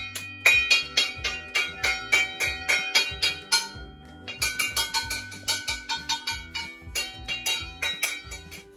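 Metal pots and pans being banged together in a rapid, ringing clatter of about four or five strikes a second, with a short lull a little before halfway.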